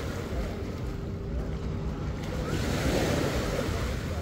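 Small waves washing up on a sandy beach, swelling a little under three seconds in, with wind buffeting the microphone.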